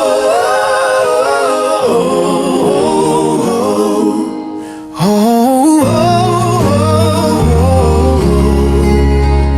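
Gospel hymn intro: a wordless sung melody over sustained accompaniment, with a short dip about four seconds in, and a bass line coming in past the middle.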